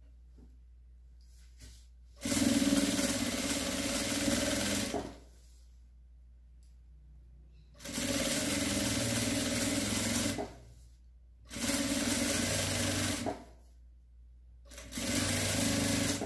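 Domestic electric sewing machine stitching in four short runs of two to three seconds each, stopping between runs. It is sewing bias binding along the edge of a patchwork fabric rug.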